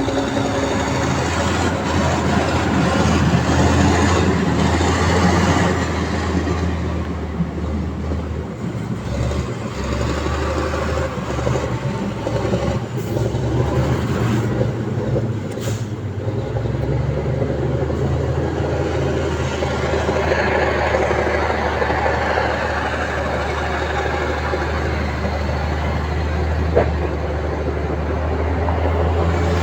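Heavy diesel machinery running steadily, its low engine note under a broad rumbling noise; the engine note shifts a little around the middle.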